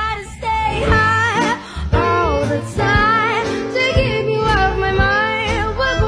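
Music: a song with a woman singing over instrumental backing with bass.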